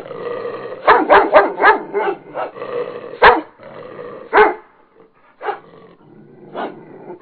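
A puppy barking and yipping: a quick run of about nine short barks, then two more single barks spaced about a second apart.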